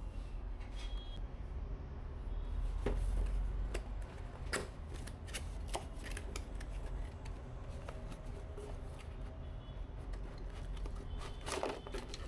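Hands handling computer parts during a PC build: scattered light clicks and taps of plastic and metal, over a low handling rumble. A quick run of clicks comes near the end.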